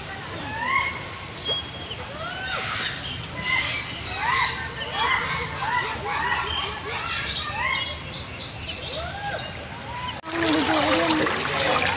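Many birds calling over one another in short, arching chirps over a steady wash of background noise. About ten seconds in there is a sudden cut to louder rushing, splashing floodwater.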